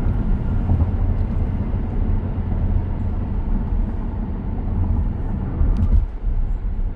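Steady low road rumble from the tyres and wind inside the cabin of a moving 2023 Tesla Model X; it eases slightly about six seconds in.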